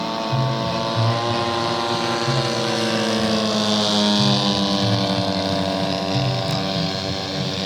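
Radio-control model airplane engine droning in flight, its propeller pitch slowly sliding down and back up as the plane passes and turns.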